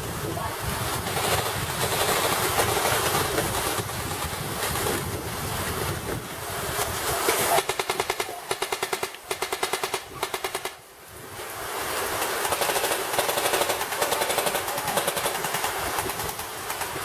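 Airsoft gun firing a few short bursts of rapid full-auto clicks, one after another for about three seconds around the middle, over a steady rushing noise.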